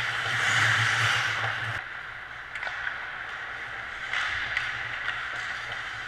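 Ice hockey rink sound: a skate scraping the ice for the first couple of seconds, then a steady hiss of skating with a few sharp stick or puck clacks, over a low steady arena hum.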